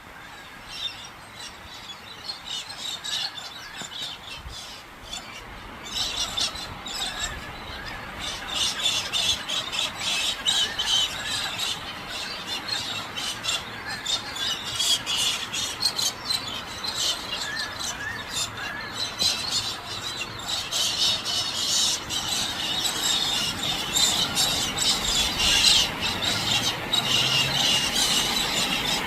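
Galahs screeching: a dense run of harsh, high calls that grows louder about six seconds in.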